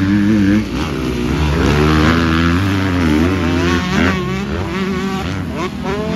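Several motocross dirt bikes racing on a dirt track, their engines revving up and down and overlapping as they pass.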